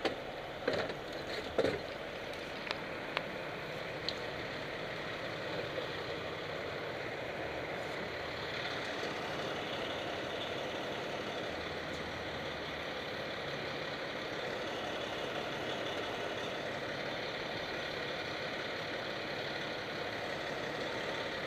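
Fire engine's diesel engine idling steadily, with a few sharp knocks in the first few seconds.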